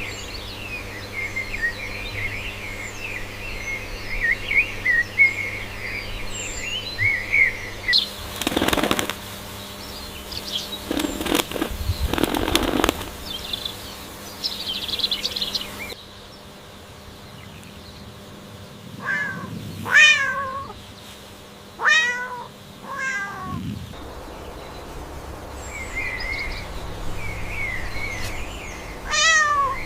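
Small birds chirping for the first several seconds, then a few seconds of rustling noise. After that a cat meows four times in quick succession, and once more near the end.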